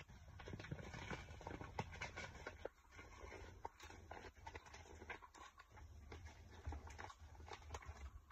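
Yellow mailer envelope being worked and torn open by hand: faint, irregular crinkling, scratching and small taps.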